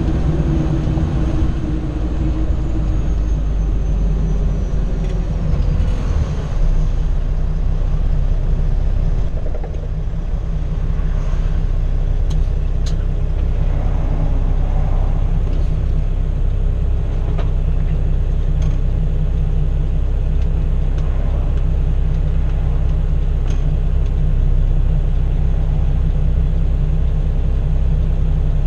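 Cummins ISX diesel engine of a Kenworth W900L truck running under way, heard inside the cab as a steady low rumble. A higher tone falls away in the first few seconds, and a few sharp clicks come about halfway through.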